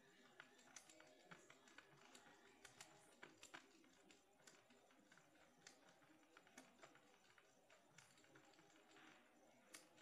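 Faint, irregular clicks of a Casio fx-82MS calculator's keys, pressed over and over as the digits 1 and 3 are entered again and again.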